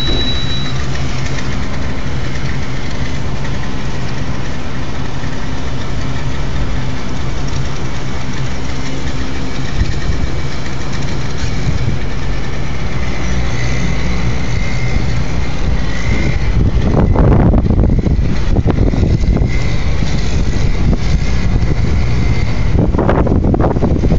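Blizzard wind buffeting a phone's microphone. A steady low hum runs under it in the first half, and strong gusts hit about two-thirds of the way in and again near the end.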